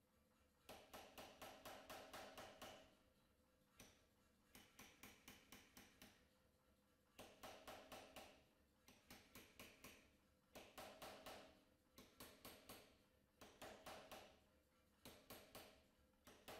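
Anyang pneumatic power hammer striking a hot steel knife blank on its dies. The blows come in short bursts of several, about five a second, each one a sharp metallic impact with a little ringing.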